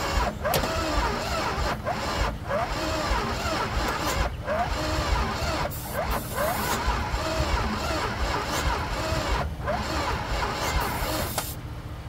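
Starter cranking the 1966 Plymouth Fury's 383 big-block V8 in several runs with short breaks between, the engine not yet catching. Short high squeaky sounds come and go over it.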